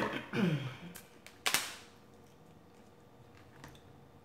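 King crab leg shell cracking open: two sharp cracks about a second and a half apart, the first followed by a short falling creak or groan, then a faint click near the end.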